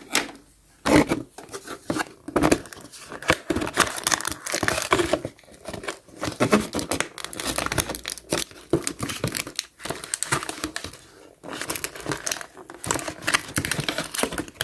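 Plastic toy packaging crinkling and crackling in irregular bursts as it is handled and pulled at to free small accessories from the box, with short pauses.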